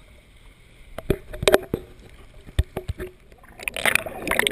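Water sloshing and slapping against a waterproof action camera held at the surface of shallow surf, with a few sharp knocks. Near the end there is a louder rush of water as the camera dips under.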